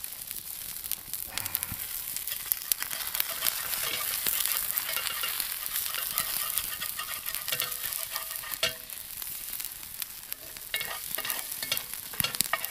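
Eggs sizzling in a hot cast-iron skillet, with a metal spatula scraping and clicking against the pan as the eggs are broken up and stirred.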